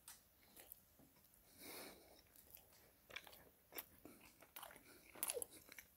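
Faint chewing of a mouthful of soft chocolate and caramel tart, with small mouth clicks scattered through and a few stronger ones near the end.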